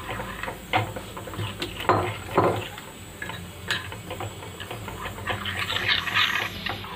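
A metal spoon stirring a wet paste of ground spices and a little water in a small ceramic bowl, scraping and clinking irregularly against the bowl's sides and bottom.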